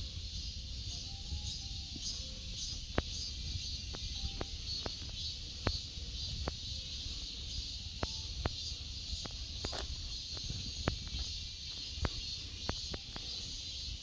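Steady high-pitched insect chorus, with light footsteps on a gravel path at walking pace, sharp clicks about once a second.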